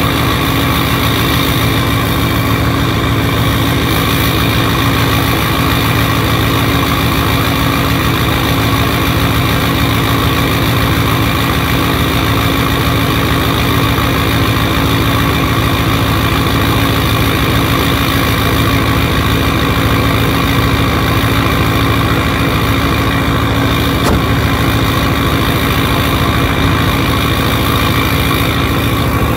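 Ford 6.0-litre Powerstroke V8 turbo-diesel idling steadily, still cold after a cold start in sub-freezing weather, heard close to the tailpipe.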